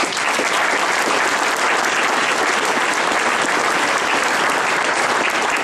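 Sustained applause from a roomful of people clapping, steady and loud, starting abruptly in response to a call to congratulate someone.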